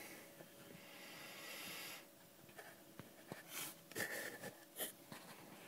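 Faint breathing close to the microphone: a soft exhale, then a few short breaths or sniffs, with scattered small clicks of handling.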